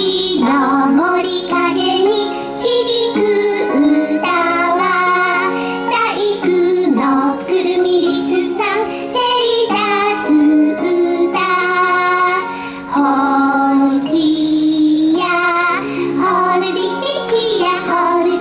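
A children's hand-play song: a high singing voice carries a bouncy melody over an instrumental backing track.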